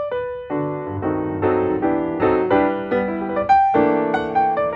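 Background instrumental music: a gentle tune of struck chords and single notes.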